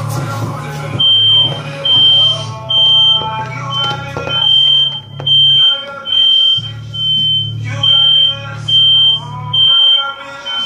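A high-pitched electronic beep repeating steadily, a little more than once a second, starting about a second in, over a low hum.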